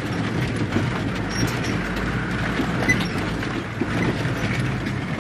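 Steady rumble of a moving road vehicle, engine and road noise heard from inside, with light scattered rattles.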